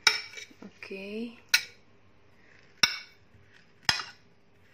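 A knife cutting bananas into chunks on a ceramic plate, the blade hitting the plate with a sharp clink four times, about a second apart.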